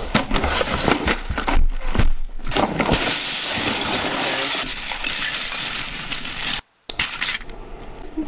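Plastic Lego bricks clattering as a tub of them is tipped out onto a play mat: a quick run of clicks building into a dense rattle, with a short break about two-thirds through before quieter clattering.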